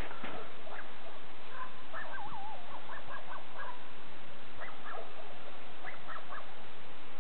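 Short animal calls in two scattered clusters, one call wavering in pitch, over a steady hiss.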